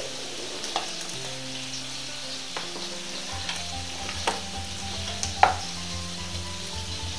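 Steady sizzling from meat patties and potatoes frying in a pan, with a few sharp clicks and knocks as sliced cherry tomatoes are scraped off a plastic cutting board into a steel bowl; the loudest knock comes about five and a half seconds in.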